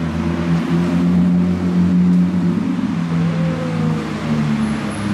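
Car engine idling steadily, its note dipping slightly past the middle and coming back up.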